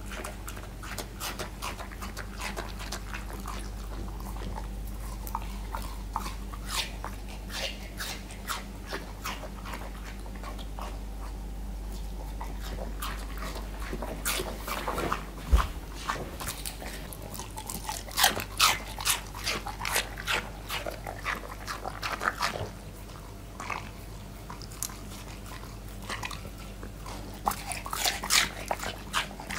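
Border collie eating watermelon slices from a plate: irregular bites and chewing noises, sparse at first and coming in thick clusters in the second half and near the end, with a single thump about halfway through.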